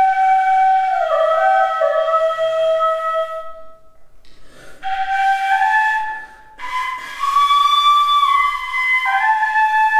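Slow solo flute melody of long held notes, played in phrases with two short breaks between them.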